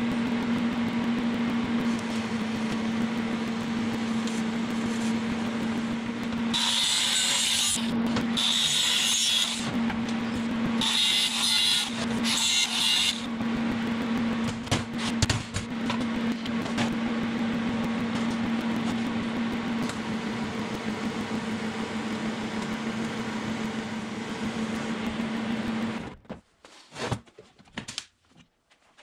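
A workshop power tool running with a steady hum, with three bursts of harsh hissing noise between about 7 and 13 seconds in as it works the metal; it stops a few seconds before the end.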